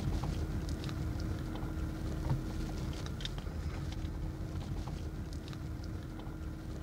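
Car driving, heard from inside the cabin: a steady low engine and road rumble with a faint steady hum and a few light clicks.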